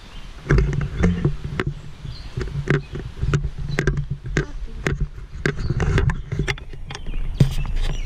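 Quick footsteps of a person walking briskly with a handheld camera, about two or three steps a second, over a low rumble of handling and wind on the microphone, starting about half a second in.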